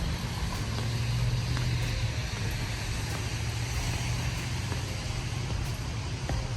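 Steady low hum and road noise of a car.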